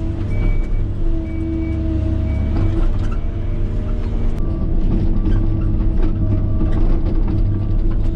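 Diesel heavy equipment running at work with a steady low rumble, while a reversing alarm beeps on and off at about one beep a second. A beeper of a lower pitch takes over about halfway through.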